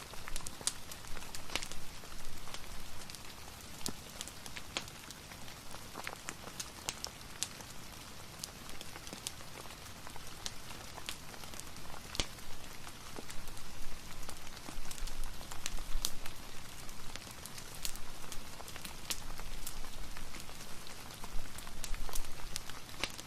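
Steady rain making an even hiss, with scattered sharp pops and crackles from a fireplace.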